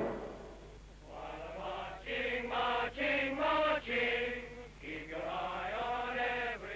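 A group of voices chanting together in unison, in short rhythmic phrases separated by brief breaks.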